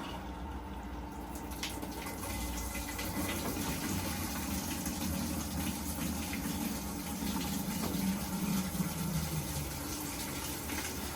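LG top-loading washing machine filling its drum with hot water at the start of a tub-clean cycle: water gushing steadily in through the inlet, with a low hum that rises a few seconds in and fades near the end.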